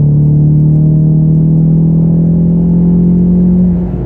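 Ford Mustang's 2.3-litre EcoBoost turbo four-cylinder through an MBRP race cat-back exhaust, heard from inside the cabin under full-throttle acceleration. The engine note is loud and climbs slowly in pitch, then drops near the end.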